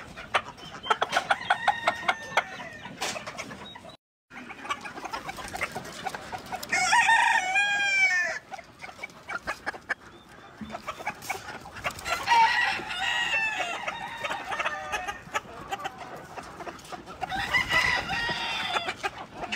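A flock of chickens clucking rapidly, with a rooster crowing about seven seconds in and more long calls around twelve and eighteen seconds in. The sound breaks off briefly near four seconds.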